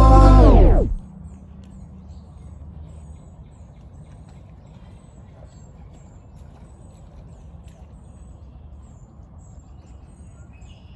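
A held electronic organ chord ends about a second in, its pitch sagging as it cuts off. Outdoor background follows: a steady low rumble with thin, high bird chirps repeating about twice a second.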